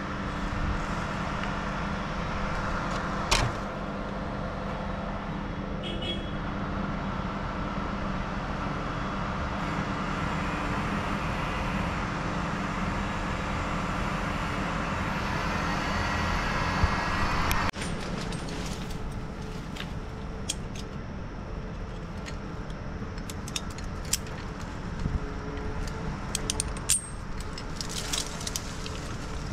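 Stick-boom crane's engine running steadily, with a higher whine that builds and then cuts off abruptly about two-thirds of the way through. A few light clicks and knocks come near the end.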